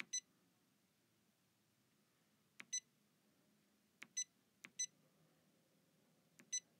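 Stylus tapping the Janome 500e embroidery machine's touchscreen, each press answered by the machine's short electronic confirmation beep. Five tap-and-beep pairs come at irregular intervals, two of them close together a little past the middle.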